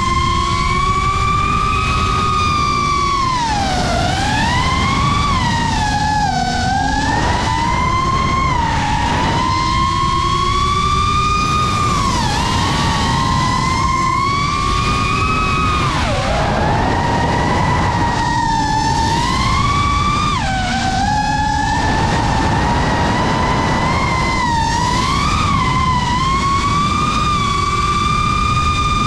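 FPV quadcopter's brushless motors whining loud and steadily, the pitch dipping sharply and climbing back again and again as the throttle is cut and punched through turns, over a steady low rumble.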